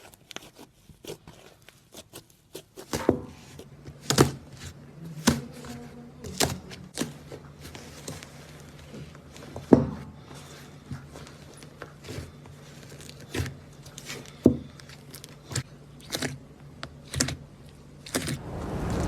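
Crunchy iceberg slime being pressed and poked, its dried crust crackling and popping in sharp cracks about once a second, over a faint steady low hum. Near the end a louder, even noise swells in.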